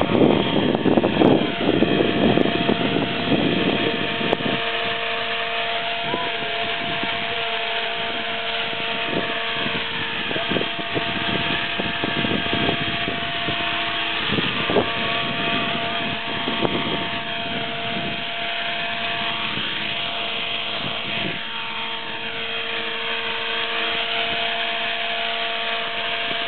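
Electric RC helicopter (Align T-Rex 450 SE) flying, its motor and rotor giving a steady high whine that rises and falls in pitch as it manoeuvres. Wind buffets the microphone for the first few seconds.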